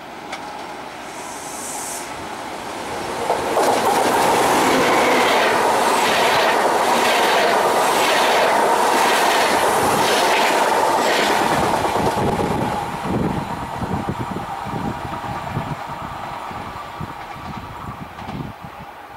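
A passenger train passing close by on the rails: a loud steady rush of wheels on track with regular clickety-clack, a click about every two-thirds of a second. It then gives way to slower, uneven clacking that fades away.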